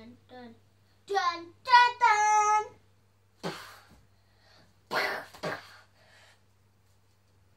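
A young boy's wordless vocal sound effects: two loud, high-pitched sung cries about a second in, then two short breathy, hissing bursts a second and a half apart.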